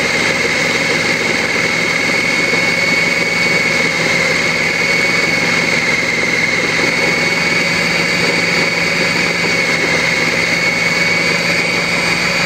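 Nutrichef food processor's motor running steadily with a constant high whine and a low hum, its blade emulsifying eggs, mustard and lemon juice into mayonnaise.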